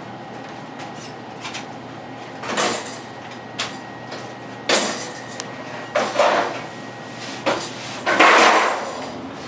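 Sheet-metal furnace parts scraping and clanking as they are handled and pulled apart, in a series of irregular scrapes with a longer, louder scrape near the end.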